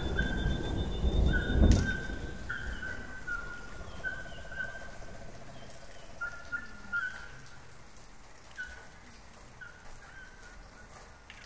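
Short whistled calls repeating every half second to a second over a steady hiss of running water or rain. A low rumble with a thud about two seconds in dies away early, and everything fades out towards the end.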